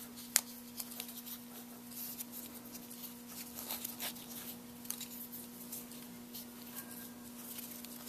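Faint handling noise as a metal Conway buckle is threaded onto a leather strap by hand: small clicks of the buckle and leather rubbing, with one sharper click about half a second in, over a faint steady hum.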